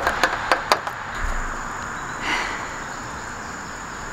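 Outdoor evening ambience: a steady high-pitched insect drone over a low background hiss, with a few sharp clicks in the first second.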